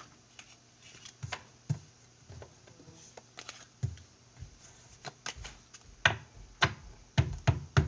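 Pokémon trading cards being handled and flipped through by hand: a series of light clicks and taps, spaced out at first and coming faster near the end.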